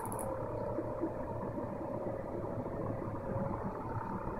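Homemade portable gas boiler running just after ignition, with its burner lit inside. Its draft fans and circulation pump keep up a steady hum with a faint, constant whine.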